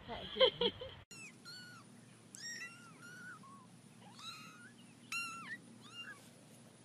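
A run of short, high-pitched kitten mews, one after another, starting about a second in.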